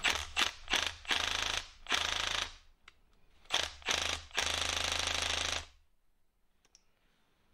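Milwaukee Fuel cordless impact wrench hammering in about eight short bursts on the nut that holds a turbocharger compressor wheel on its shaft, the last burst the longest at over a second, stopping about six seconds in. The nut is a left-hand thread and does not come off on this try.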